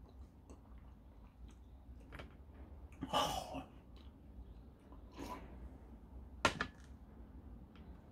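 Close eating sounds: wet sucking and slurping at a whole ripe tomato and a sip from a mug, the longest slurp about three seconds in and a shorter one about five seconds in. A sharp knock about six and a half seconds in is the loudest sound.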